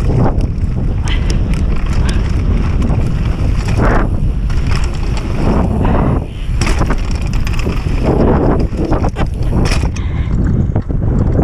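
Wind buffeting the microphone of a bike-mounted action camera during a mountain bike descent, over a steady rumble of tyres on dirt and gravel. The bike rattles and knocks over bumps, with louder surges every second or two.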